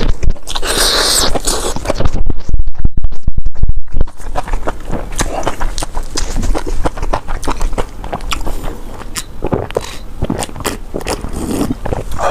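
Close-miked wet chewing of Buldak fire noodles wrapped in liangpi: a dense run of rapid, sticky mouth clicks and smacks, loudest about two to four seconds in.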